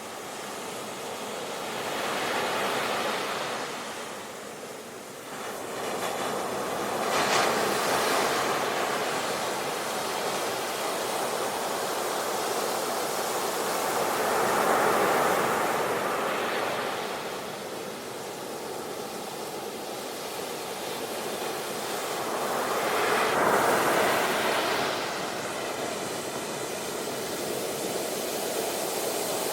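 Ocean waves breaking and washing on a shore, a steady surf hiss that swells and ebbs, with four or five bigger waves cresting over about half a minute.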